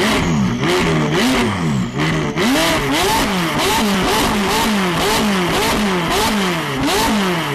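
Straight-piped McLaren 570S twin-turbo V8 being free-revved while parked: a few longer revs at first, then quick blips about two a second, the pitch rising and dropping with each, with sharp crackles from the exhaust.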